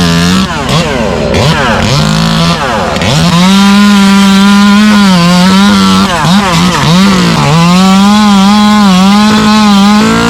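Gas-powered two-stroke chainsaw running at high revs while cutting palm fronds. Its pitch sags and recovers several times as the chain bites and frees.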